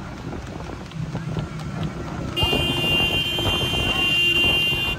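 Motorcycle engines running close by, with wind buffeting the microphone. About two and a half seconds in, a vehicle horn starts sounding with one steady high tone and keeps blaring, the loudest sound here.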